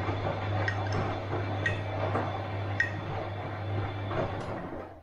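Bosch washing machine running, with its drum churning the wash and water: a steady low hum under a noisy swish, and a few light clicks about once a second. The sound stops abruptly near the end.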